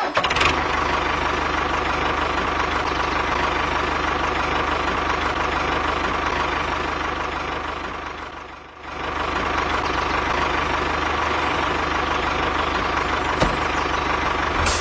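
Tractor engine running steadily, dipping briefly in level and coming back about nine seconds in.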